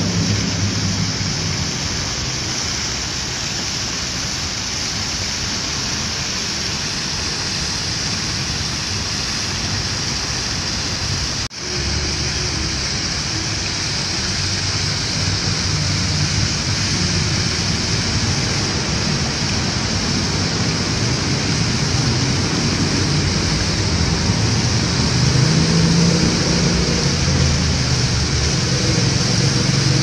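Fountain water falling from tiered stone basins into the pool below, a steady splashing rush, with a low rumble underneath. The sound drops out briefly about eleven seconds in.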